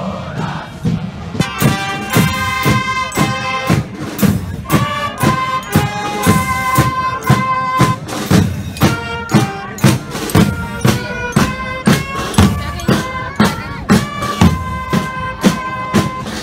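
Military marching band playing a march: drums beat a steady march rhythm of about two strokes a second, and a wind and brass melody comes in about a second and a half in.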